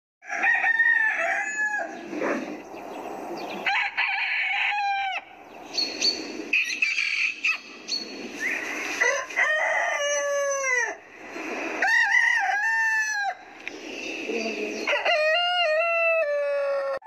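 Chickens calling: roosters crowing and hens clucking, one call after another with abrupt changes between clips, and a long crow falling in pitch near the end.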